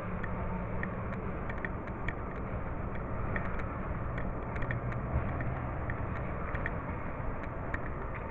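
Distant machinery clanking and banging over a steady low engine drone, with sharp metallic knocks coming irregularly, several a second at times.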